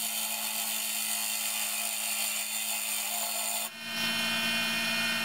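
Wood lathe running while a hand-held turning chisel cuts into the spinning wooden blank, a steady scraping, shaving cut over the lathe motor's constant hum. The cutting sound changes about three and a half seconds in as the tool is repositioned.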